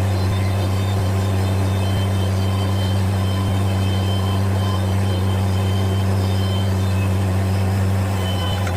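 Bobcat MT100 mini track loader's engine running steadily, a low even drone that eases off just before the end.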